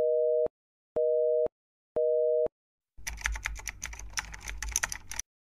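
Telephone busy signal: three half-second beeps of a steady two-note tone, one a second. About three seconds in, it gives way to a couple of seconds of rapid computer-keyboard typing clicks.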